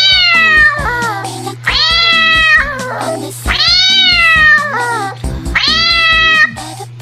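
Domestic cat meowing: four long meows, each rising then falling in pitch, over steady background music.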